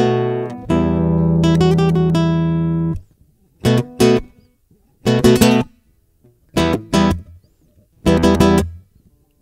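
Acoustic guitar strummed: a chord rings for about two seconds, then comes a run of short, cut-off chord strokes with brief silences between them.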